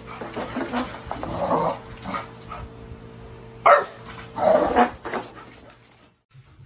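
A dog barking several times, the loudest a sharp bark about three and a half seconds in.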